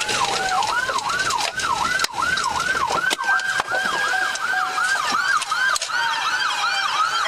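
Police car sirens running in yelp mode, a fast rising whoop about three times a second, with a second siren wailing more slowly underneath, its pitch falling and then holding. Occasional knocks are heard over them.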